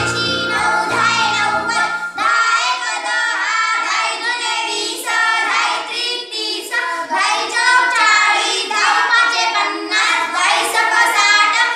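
A group of children chanting multiplication tables in unison in a sing-song rhythm. Background music plays underneath for about the first two seconds, then stops, leaving the children's voices alone.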